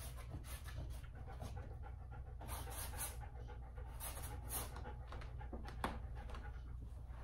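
A dog panting steadily in quick, soft breaths, with a single sharp click about six seconds in.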